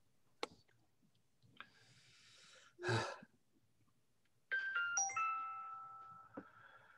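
An electronic chime: a few quick stepped tones about four and a half seconds in, then a held tone fading out over about two seconds. Earlier there is a faint click and a brief noise burst, the loudest moment, about three seconds in.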